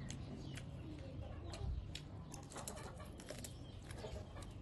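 Close-up eating sounds: a string of small clicks and crackles as dried salted fish is pulled apart by hand and chewed, thickest around the middle.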